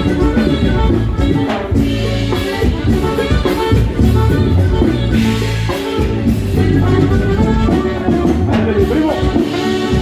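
Live norteño band music with saxophone, played loud over a steady bass line for couples dancing.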